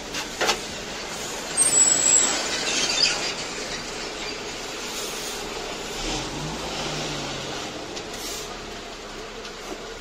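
Metal spatula clinking twice and scraping in a steel griddle tray of chopped kokoreç, with a louder rushing noise about two seconds in, over a steady din of street traffic.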